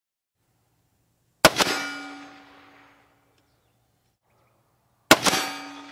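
Two rifle shots about four seconds apart from a suppressed Stag 2TL AR-15 (AAC M4-2000 suppressor, 5.56 mm 55-grain ball). Each report is followed a split second later by the clang of the bullet striking a steel target, which rings and fades over about a second and a half.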